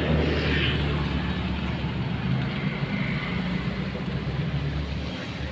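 Road traffic: a motor vehicle's engine hum with road noise, steady and then fading near the end.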